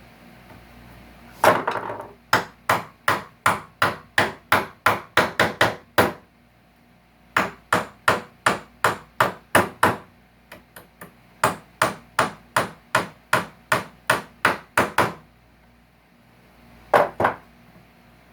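Hammer striking wood in runs of quick, even blows, about three a second, with short pauses between runs and two last blows near the end: knocking nails and staples out of salvaged wood.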